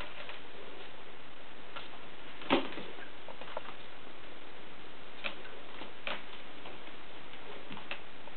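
Siberian kittens scrambling on a carpeted cat tree: scattered light clicks and scuffs, with one louder knock about two and a half seconds in, over a steady hiss.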